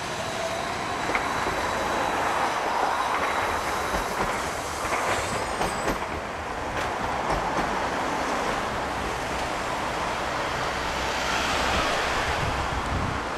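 Hiroden 5000-series Green Mover articulated low-floor tram rolling past on street track, its wheels running over the rails with a steady rumble and a few sharp clicks. Near the end a large road vehicle passes close by, adding a swell of engine and tyre noise.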